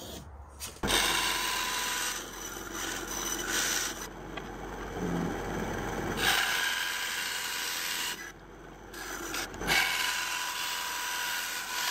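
Band saw cutting a sheet of G10 fibreglass-epoxy handle stock. The cutting noise starts suddenly about a second in, drops away for about a second near the two-thirds mark, then picks up again.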